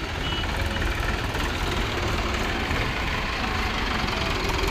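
Diesel engines of several farm tractors running steadily at low speed as they move past in a slow column.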